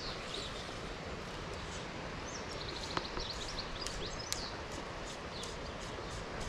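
Steady outdoor background noise with small birds chirping now and then, and a single sharp click about three seconds in.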